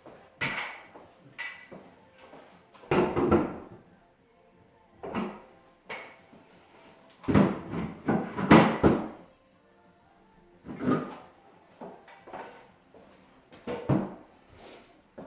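Irregular sliding scrapes and knocks, each under a second, as sectional garage door panels and their fittings are handled; the loudest come in a cluster about halfway through.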